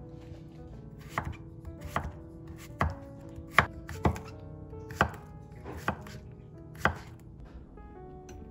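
Chef's knife slicing a zucchini on an end-grain wooden cutting board: about eight separate cuts, roughly one a second, each ending in a sharp knock of the blade on the wood. Soft background music runs underneath.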